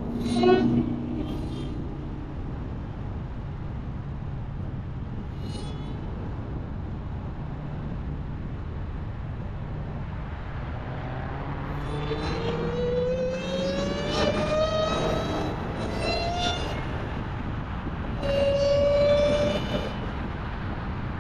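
Supercharged 6.2-litre Hemi V8 of a Dodge SRT Hellcat. It runs with a steady low drone, with a brief loud burst about half a second in. About twelve seconds in it accelerates hard: a rising whine climbs, drops back and climbs again through the gear changes, then holds a strong high whine near the end.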